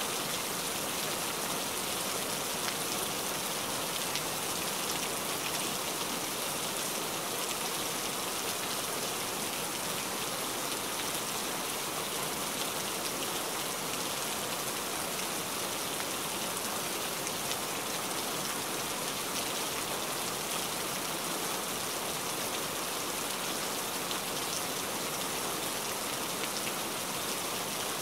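Heavy rain falling steadily on water-covered ground: an even, dense hiss of splashing drops that keeps up without a break.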